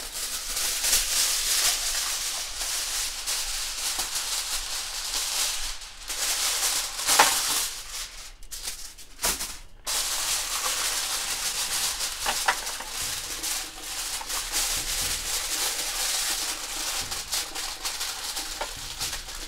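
Aluminium kitchen foil crinkling and rustling as it is pressed over a roasting tray and folded under the tray's edges to seal it, with a short break about halfway through.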